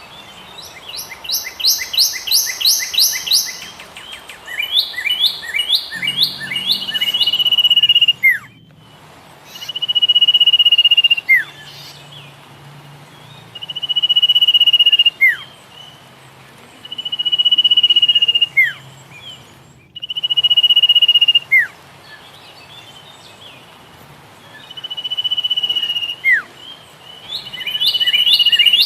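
A songbird singing loudly: a few quick series of chirps, then a long held whistle that swells in loudness and ends with a sharp downward slide, repeated about six times at roughly four-second intervals. A faint low hum lies underneath.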